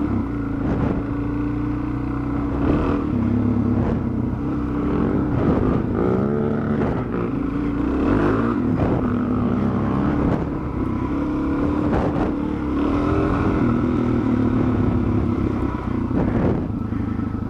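Dual-sport motorcycle engine running under changing throttle, its pitch rising and falling, with a few sharp knocks along the way.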